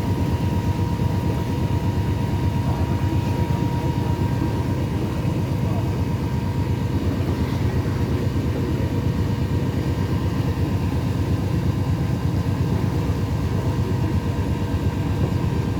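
The cruise boat's engine running steadily, a low, even rumble heard from on board.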